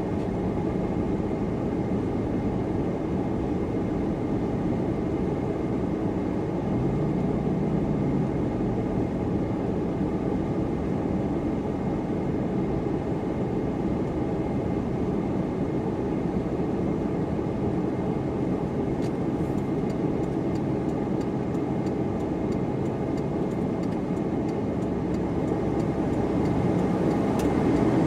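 A car driving: steady engine and road noise, growing louder near the end.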